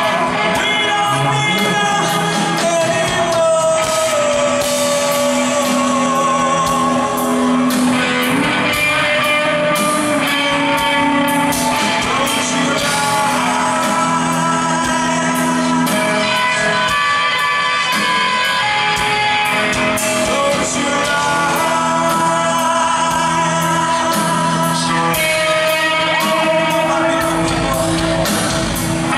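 Live rock band playing: a male lead singer over drums and electric guitar.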